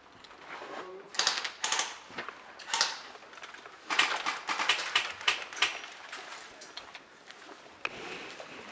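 Airsoft guns firing in short rapid bursts of clattering clicks, the longest and densest burst about four to five and a half seconds in.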